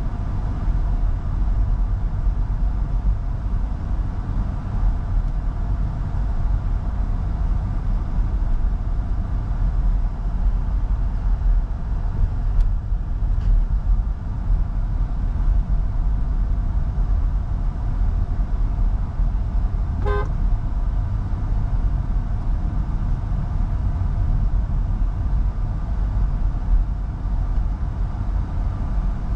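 Steady low road and engine rumble of a 2024 MG Hector Plus with a 1.5 turbo petrol engine and CVT, driving. A short car-horn toot sounds about two-thirds of the way through.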